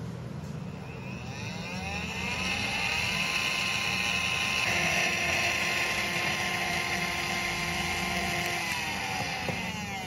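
Small brushed DC motor resting on a plastic controller case, buzzing the case as it runs. It speeds up gradually over about two seconds (a rising whine), runs steadily with one shift in tone midway, then slows down near the end. These are the soft start and soft stop of PWM speed control.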